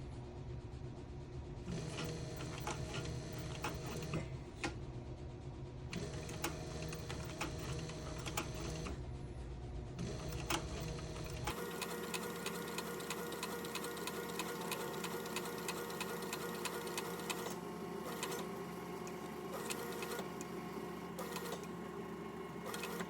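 Cobra Class 26 leather sewing machine stitching through thick leather, running in short bursts of rapid needle strokes with brief pauses between runs.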